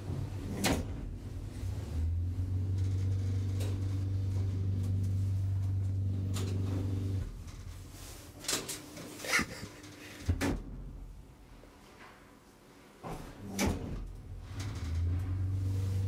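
Lift machinery humming steadily while the car travels, cutting off about seven seconds in, followed by several sharp clicks and clunks of the lift's mechanism. The hum starts up again near the end.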